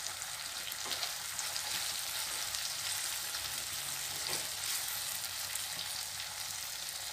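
Onion and capsicum pieces sizzling in hot oil in a wok, stirred with a wooden spatula, with a couple of light spatula scrapes against the pan.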